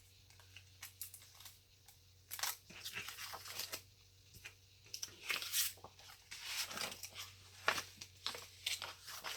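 Paper being handled and a sticker peeled from its backing sheet: a run of short crinkling, tearing rustles with quiet gaps, starting about two seconds in.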